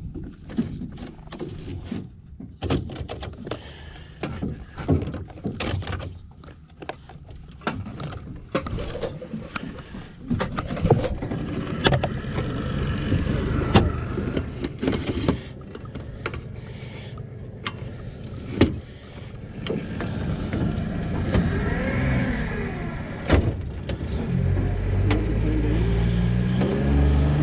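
Clicks and knocks of folding boat seats and gear being handled in an aluminium fishing boat. Later a motor starts, wavering in pitch at first, then runs strongly with its pitch rising near the end: the boat's outboard motor getting under way.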